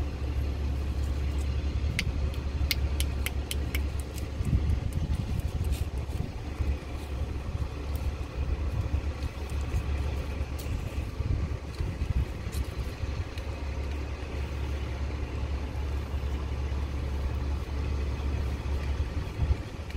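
A delivery truck's engine running steadily nearby as a low rumble. During the first few seconds there is a run of short sharp clicks as pliers nip at a plastic drain fitting.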